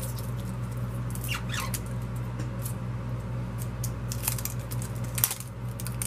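Thin plastic wrapping crinkling and clicking in scattered bursts as an eye crayon is unwrapped by hand, with a sharper click about five seconds in and another near the end, over a steady low hum.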